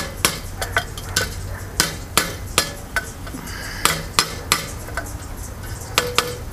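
A run of sharp metallic clicks and ticks, irregular at about two a second, over a low steady rumble.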